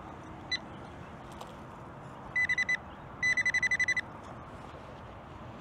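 Metal-detecting pinpointer (Nokta AccuPoint) beeping on a coin in a freshly dug plug: one short beep, then two quick runs of rapid beeps at one high pitch, the second run longer at about a dozen beeps a second.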